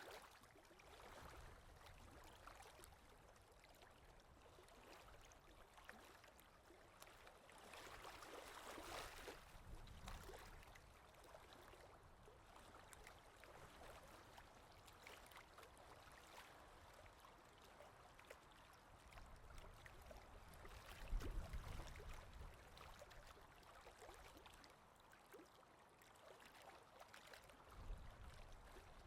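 Near silence: faint, scratchy rustling noise with small clicks, a little louder about a third of the way in, and a soft low bump about two-thirds through.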